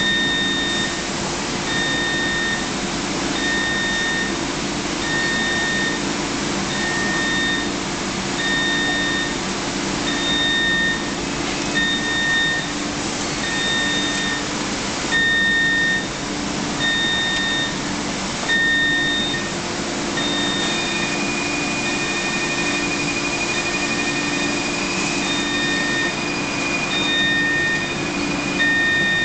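Steady rush and hum of semiconductor wafer-track machinery and cleanroom air handling, with an electronic beeper sounding about once a second. About two-thirds of the way through, a second steady high-pitched tone starts and holds.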